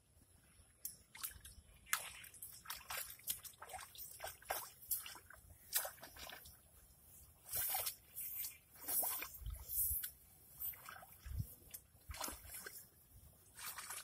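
A nail weeder's tines raked back and forth through puddled mud and shallow standing water in a transplanted rice field, churning the mud to uproot young weeds. It makes irregular sloshing and splashing strokes, louder in the second half.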